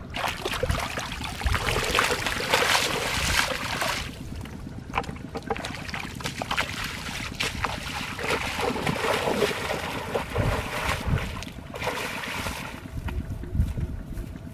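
Shallow muddy floodwater splashing and sloshing in uneven bursts, first from hands groping through it and then from bare feet wading across it. A low wind rumble on the microphone runs underneath.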